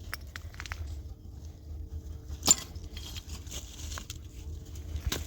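Scattered light clicks and knocks with one sharp, loud clink about halfway through and another near the end, over a steady low rumble.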